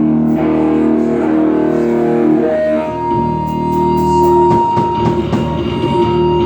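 Guitar playing sustained notes, moving to a new chord about three seconds in.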